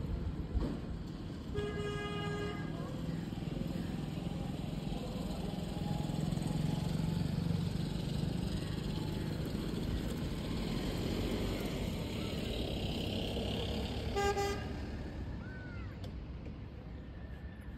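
Steady low rumble of passing traffic with a horn sounding twice: about a second long near the start, and a short toot about fourteen seconds in. A few faint bird chirps near the end.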